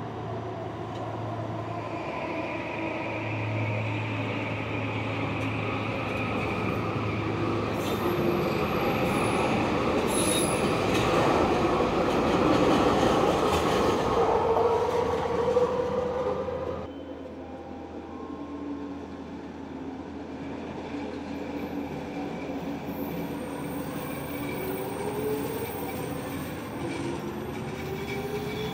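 SkyTrain train running through the station, its linear-induction-motor drive whining in several steady tones over the rail rumble. It grows louder to a peak about halfway through, then drops away suddenly. Near the end a whine rises in pitch as a train speeds up.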